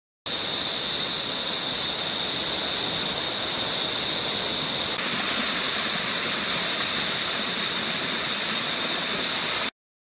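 Small waterfall and stream running over rocks into a pool: a steady rush of water with a steady high-pitched ringing above it, shifting slightly in tone about halfway through. It cuts in and out abruptly.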